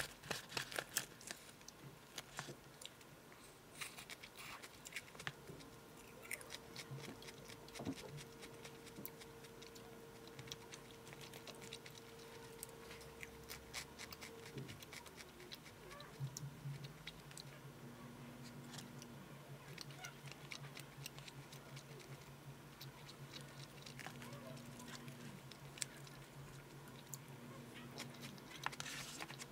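Wooden chopsticks clicking and scraping against a paper bowl while stirring and picking up poke-bowl food, with faint chewing: many small, irregular taps, quiet overall.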